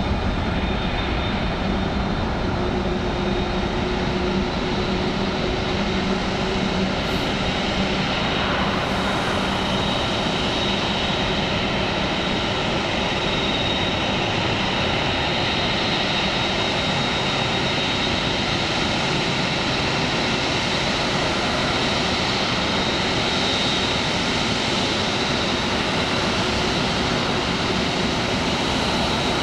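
Jet aircraft engines running steadily: a broad, even rush of engine noise with a thin, high whine held at one pitch throughout.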